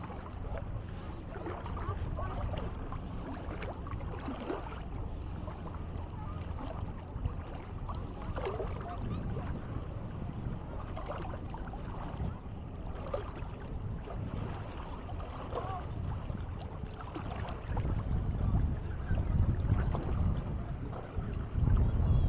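Beach ambience: a steady low rumble of wind on the microphone, with scattered snatches of people's voices. The rumble grows louder in the last few seconds.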